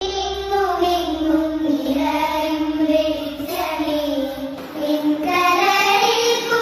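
A song laid over the slideshow: a high, child-like voice singing a continuous melody over light musical backing.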